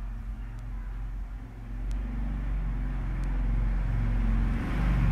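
Low engine rumble of a motor vehicle, growing louder toward the end.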